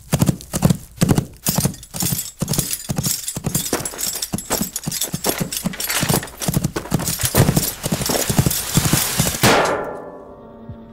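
Hoofbeats of a horse clip-clopping in a fast, uneven rhythm, thinning out and fading near the end.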